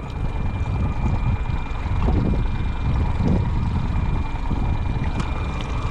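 Wind buffeting the camera microphone: a low, irregular rumble, with a faint steady high tone behind it.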